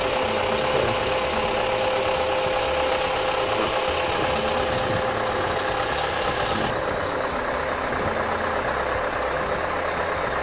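Steady engine and road noise of a car being driven, with a constant hum.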